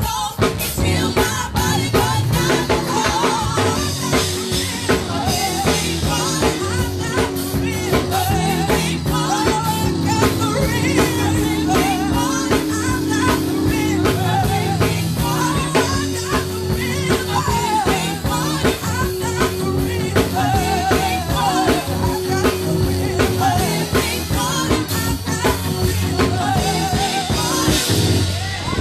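Gospel praise-team music: singing over a band with drum kit, bass and guitar keeping a steady beat.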